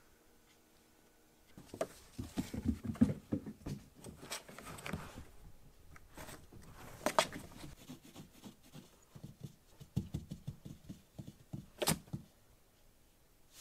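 Kittens' paws pattering and scrabbling on a cardboard cat house: irregular soft thumps, scratches and clicks, starting about a second and a half in, with a couple of sharper clicks later.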